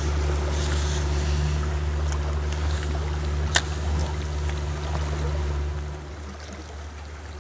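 A small fishing boat's engine drones steadily across the water, dropping away about six seconds in as the boat moves off. A single sharp click comes partway through.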